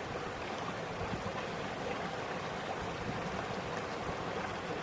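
Steady rushing noise like running water, with a few faint soft ticks.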